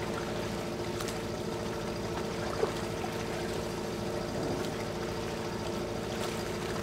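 Longtail boat engine running steadily at low revs, an even hum over the wash of water, with one brief sharp knock about two and a half seconds in.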